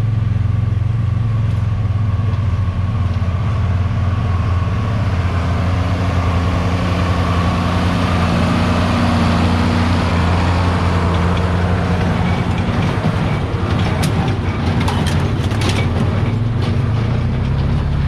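John Deere 4430 tractor's six-cylinder diesel engine running steadily, with a run of sharp clacks about three quarters of the way through.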